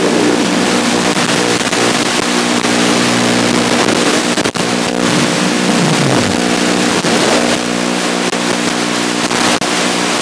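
FPV quadcopter's brushless motors and propellers whining under a heavy hiss of wind and static, with a pitch sweeping down about five to six seconds in. A sharp click about four and a half seconds in.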